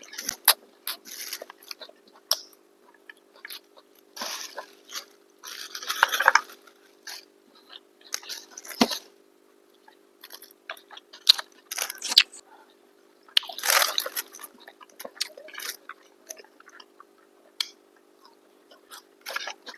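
Close-miked eating sounds of people eating chicken biryani and kababs: irregular chewing, wet squishes and small clicks, with a couple of longer, louder bursts. A faint steady hum runs underneath.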